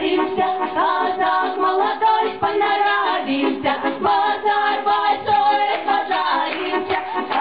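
Women's folk choir singing a song together in chorus.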